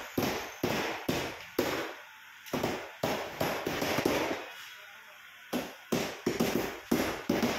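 Hand hammer striking repeatedly as brick-pattern cladding boards are nailed down, in quick runs of sharp blows with a short pause about four seconds in.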